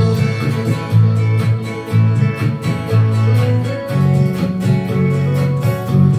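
Acoustic guitar strummed in a steady rhythm over held bass notes: the instrumental opening of a song.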